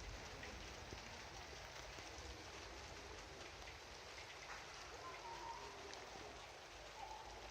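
Rain falling steadily during a thunderstorm, with individual drops heard as small ticks.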